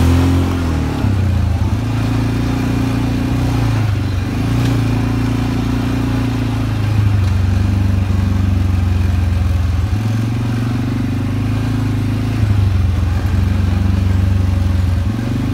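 ATV engine running steadily while riding a dirt trail, its drone stepping up and down in pitch a few times with the throttle, over a constant rushing hiss.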